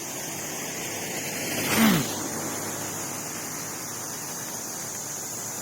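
A vehicle passes close by on the road, its sound swelling for about half a second and its engine note dropping in pitch as it goes past, just before two seconds in, over a steady background hiss.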